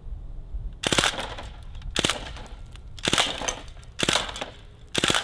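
A CO2-powered full-auto BB gun, an MP40 replica, fires five short bursts of a few shots each, about one burst a second.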